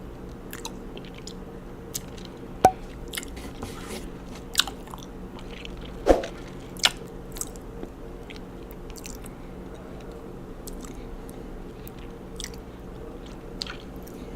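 Close-miked chewing of raw honeycomb: sticky, wet smacks and clicks of wax and honey, with a few louder snaps about three and six seconds in, over a faint steady hum.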